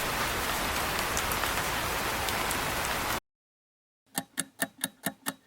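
Shower running: a steady spray of water that cuts off suddenly about three seconds in. After a moment of silence, a steady ticking starts near the end, about four ticks a second.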